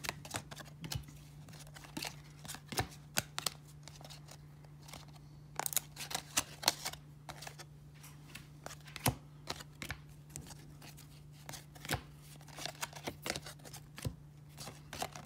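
1994 Topps baseball cards being flipped through by hand: irregular light snaps and rustles of card stock as each card is slid off the stack, with a quicker run of snaps about six seconds in. A faint steady low hum runs underneath.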